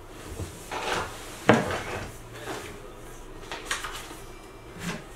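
Knocks and clatter of office chair parts being handled during assembly, as the seat with its metal tilt mechanism is turned over and set down. There are several separate knocks, the loudest about a second and a half in.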